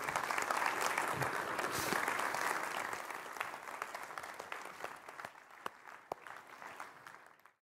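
Audience applauding, loudest for the first few seconds, then thinning out to scattered claps before cutting off suddenly near the end.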